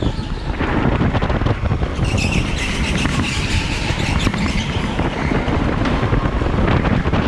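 Electric go-kart driven at speed over a bumpy concrete floor: steady rumble and rattling of the chassis and tyres, with a higher whine coming in about two seconds in and fading a couple of seconds later.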